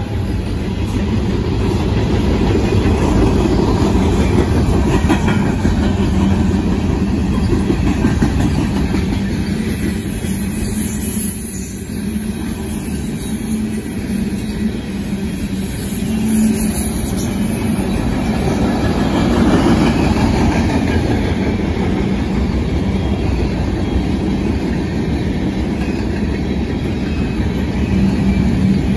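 Freight cars of a long manifest train rolling past, their steel wheels running on the rails in a steady rumble and clatter.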